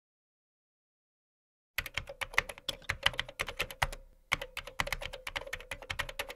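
Computer keyboard typing sound effect: rapid key clicks starting about two seconds in, with a short pause a little past the middle.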